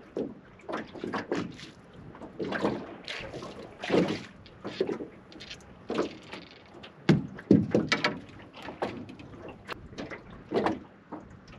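Irregular knocking and handling noises in a small aluminium fishing boat as a northern tiger squid is brought aboard, with two sharper thumps about seven seconds in.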